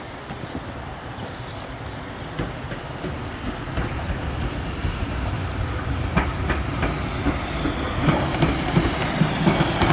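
Steam locomotive approaching slowly and growing steadily louder, its wheels clicking over the rail joints, with a hiss of steam building over the last few seconds.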